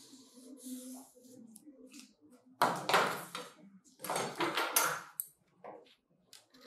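A felt-tip marker scratches faintly along a ruler on pattern paper. Then come two loud spells of paper rustling, about two and a half and four seconds in, as the cut pattern sheets are handled and shifted.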